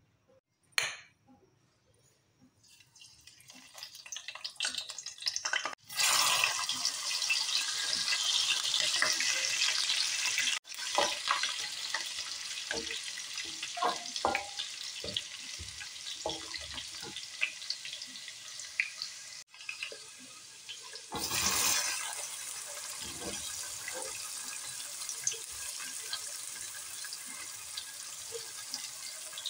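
Hot oil sizzling in a steel karahi as whole spices and chopped greens fry, with a wooden spoon stirring. The sizzle builds from about three seconds in, grows sharply louder about six seconds in, and swells again about twenty-one seconds in.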